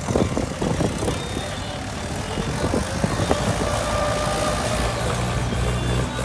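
Mahindra 475 DI tractor's diesel engine running steadily under load as it pulls a plough through dry soil, with irregular clattering knocks over the first three seconds.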